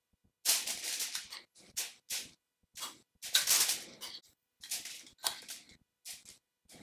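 Salsa being spooned out of a ceramic bowl onto aluminium foil: a spoon scraping the bowl and the foil crinkling in short, irregular bursts with brief pauses between them.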